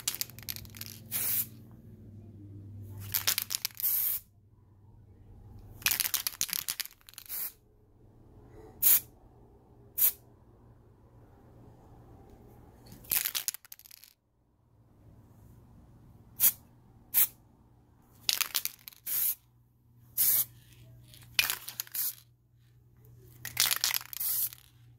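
Aerosol marble-effect spray paint can sprayed in about a dozen short hissing bursts, some long and some brief taps.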